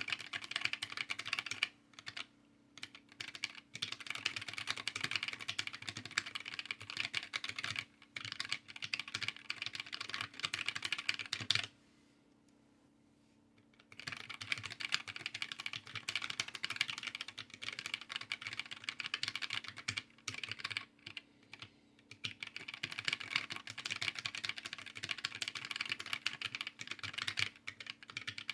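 Fast continuous typing on a small handwired mechanical keyboard: a dense stream of key clicks that stops for about two seconds around the middle, then starts again.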